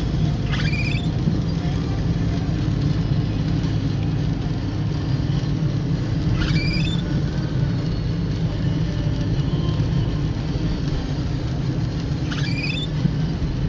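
Inside a car driving on a wet road in rain: a steady engine and tyre rumble with a hiss of rain and spray. A short high chirp comes three times, about six seconds apart.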